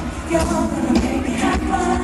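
Live pop music: a woman singing into a handheld microphone over a band with a steady beat.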